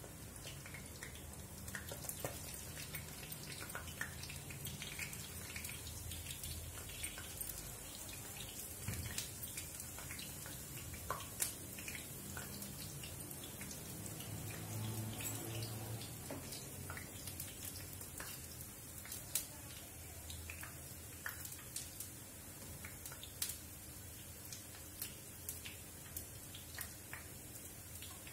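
Jalebi batter frying in hot ghee: a steady sizzle with many small, sharp crackling pops.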